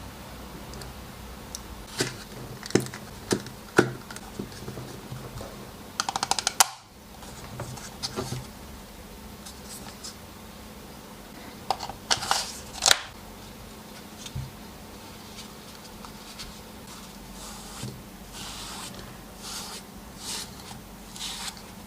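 Sharp clicks and knocks of drill parts being handled and fitted on a workbench, with a quick run of clicks about six seconds in and a burst of louder knocks around the middle.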